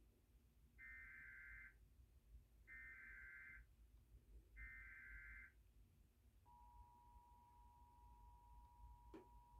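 Emergency Alert System test tones, faint. Three short buzzy bursts of the SAME digital header, about two seconds apart, are followed about two-thirds through by the steady two-tone EAS attention signal (853 and 960 Hz). A brief click comes near the end.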